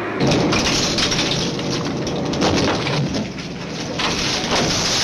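Underground mine work noise: loose shale and rock clattering and crashing in a dense crackling din, starting abruptly and easing briefly midway before swelling again.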